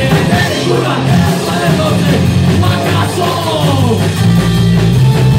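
Live rock band playing loud, with distorted electric guitars and a drum kit.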